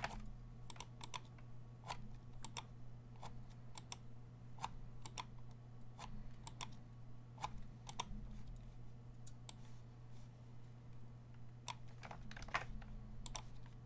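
Scattered clicks of a computer keyboard and mouse, coming irregularly about one or two a second, over a steady low hum.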